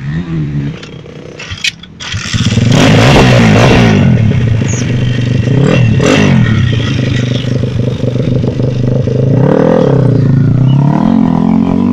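Pitster Pro pit bike's single-cylinder engine running and being revved, its pitch rising and falling with the throttle. It gets much louder about two seconds in, and the revs climb again near the end.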